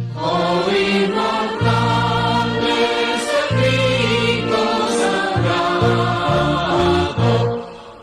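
Recorded music with singing voices over changing bass notes, playing on a radio broadcast; the level dips sharply near the end before the music picks up again.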